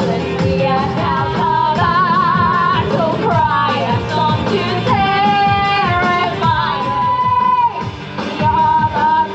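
Pop-style music with a singer holding long notes, some with vibrato, over a steady bass line and beat.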